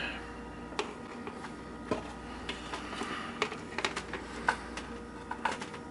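Handling noise: a thin clear plastic lid and multimeter test leads being picked up and moved into place, giving irregular light clicks and taps over a faint steady low hum.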